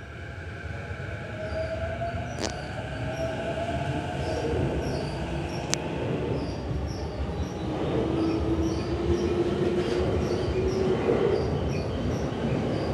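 JR East E233 series electric commuter train pulling out and gathering speed, its running noise growing louder. A motor whine slowly rises in pitch over the rumble of the wheels, with a couple of sharp clicks from the rails.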